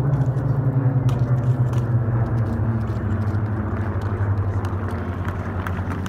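A formation of piston-engine propeller aircraft flying overhead, their engines droning together. The pitch slowly falls as they pass and move away.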